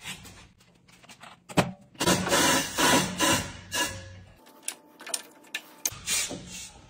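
Tyre-changing machine mounting a studded tyre onto an alloy wheel: the rubber bead rubs and scrapes over the rim in a run of strokes a couple of seconds in, with sharp clicks and clacks scattered around it.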